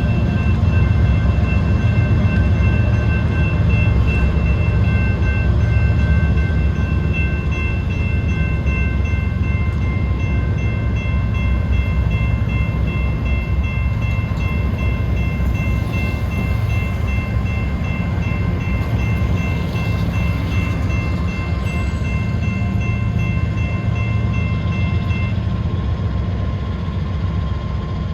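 Norfolk Southern freight train rolling past, a steady heavy rumble of wheels and railcars, with a steady high-pitched ringing over it that stops near the end.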